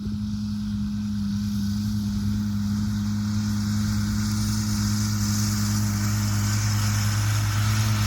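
John Deere 6800 tractor's six-cylinder diesel engine running steadily at a constant speed, a deep even hum that grows slightly louder.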